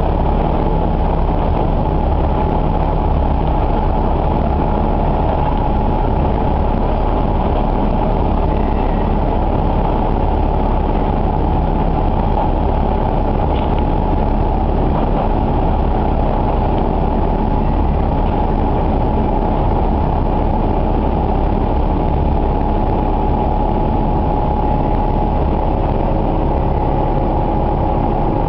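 Nagara River Railway diesel railcar heard from inside the cabin while it runs along the line: a steady engine drone mixed with the wheels rolling on the rails.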